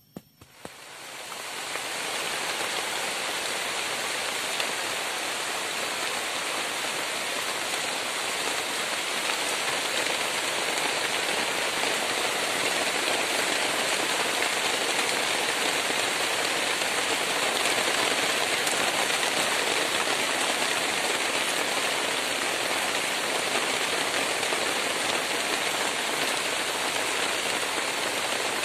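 Heavy tropical rain pouring steadily onto grass and palm leaves, a dense even hiss that swells up over the first couple of seconds and then holds.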